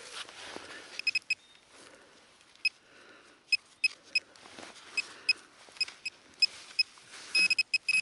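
Metal detecting pinpointer beeping in short high chirps as it is probed into dug soil: scattered single beeps at first, then a fast run near the end as it closes on a buried metal target.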